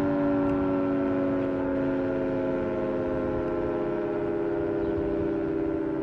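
Federal Signal 3T22 three-tone outdoor warning siren winding down: its chord of tones slowly falls in pitch and fades a little.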